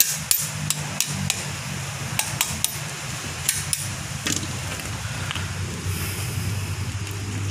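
Sharp metallic clinks and taps, about a dozen, mostly in the first four seconds or so, as pliers work a housing loose on a Mercedes-Benz OM366 diesel cylinder head. A steady low hum runs underneath.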